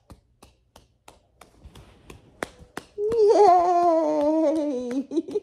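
Light claps or taps at about three a second, then a high, wavering voice held for about two seconds, its pitch sliding slowly down.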